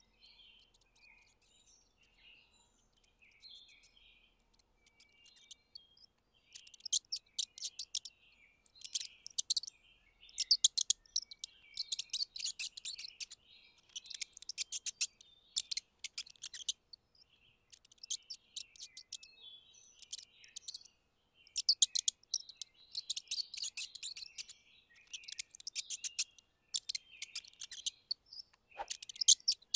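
Mice squeaking in high, rapid chittering bouts, each about a second long and coming every second or two. The first few seconds hold only faint scattered chirps.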